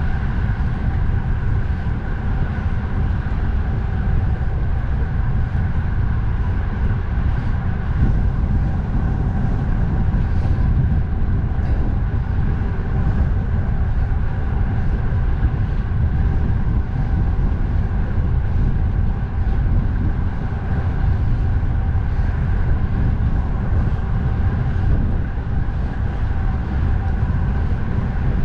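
Steady, heavy wind rumble on the microphone of a moving bicycle, over a constant hum of road and traffic noise.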